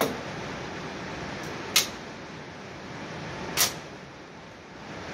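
Three sharp cracks, a little under two seconds apart, over the steady air hiss of an indoor shooting range.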